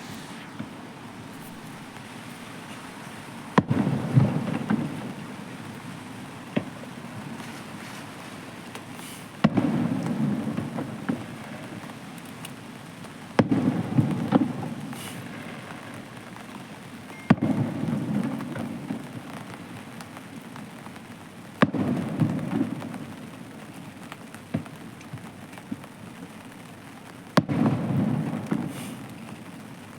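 Aerial fireworks shells bursting six times, several seconds apart: each a sharp bang followed by a low rumble with crackling that dies away over a second or two, over a steady background hiss.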